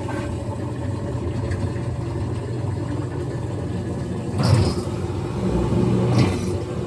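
GE top-loading washing machine running with oranges in the drum: a steady low rumble, with two louder bumps about four and a half and six seconds in.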